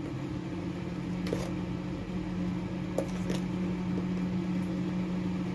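A steady low mechanical hum, like a small motor or appliance running, with a few faint light clicks.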